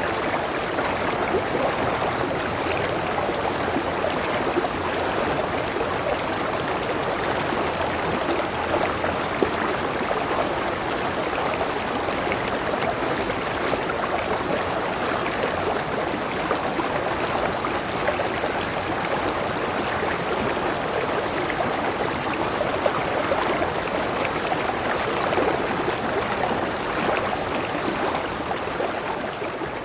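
River water flowing and rushing steadily, fading out near the end.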